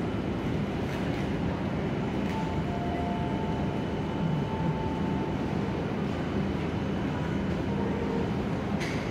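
Steady hum of a stationary Toyama Chiho Railway 7000-series tram waiting at the platform. Two faint high tones come and go in the middle.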